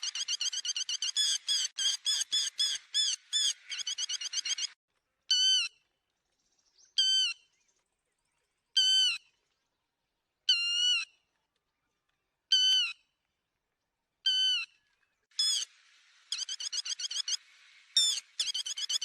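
Lapwing ('te te mỏ vàng') calls used as a trapping lure: a fast run of sharp repeated notes, then six separate wavering call notes spaced just under two seconds apart, then the fast run again near the end.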